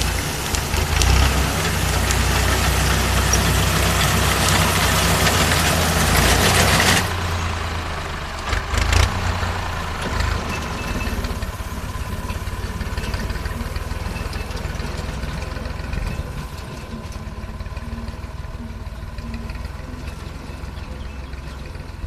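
Diesel tractor engine running steadily as its front-mounted reaper cuts standing wheat. A loud hiss over it stops abruptly about seven seconds in, and the engine grows fainter near the end as the tractor moves away.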